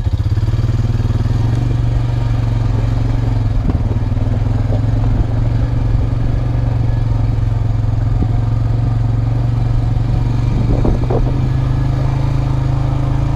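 Honda Rancher 350 ATV's single-cylinder four-stroke engine running steadily at an even pitch under way. It cuts off suddenly at the end.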